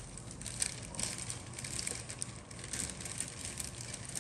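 Plastic model-kit sprues and their clear plastic packaging being handled, with irregular crinkling and light plastic clicks throughout.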